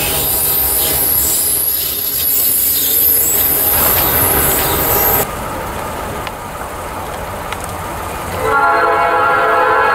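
Freight cars rolling past close by, wheels running with a high-pitched squeal over the rail noise. The sound drops abruptly about five seconds in, and from about eight and a half seconds an approaching Norfolk Southern diesel locomotive sounds its chime horn, held steady.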